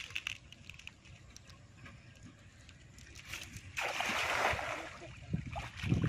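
River water sloshing and splashing, with one louder splash about four seconds in that lasts about a second.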